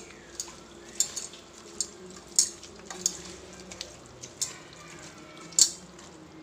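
Raw duck pieces being mixed by hand with spices in a stainless steel pressure cooker: irregular sharp clinks and knocks as meat and bones strike the pot's steel sides, the loudest near the end, over a faint steady hum.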